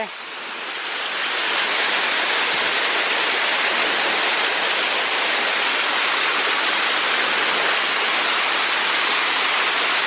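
Steady rush of a waterfall and the rocky creek below it, a constant hiss of falling water that swells over the first couple of seconds and then holds even.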